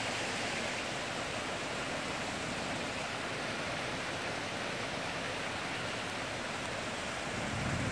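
Rain falling steadily, an even hiss. A low rumble builds near the end.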